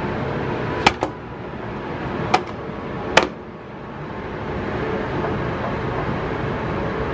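Steady din of an arcade room, with three sharp clicks: one a little under a second in, then two more about two and a half and three seconds in.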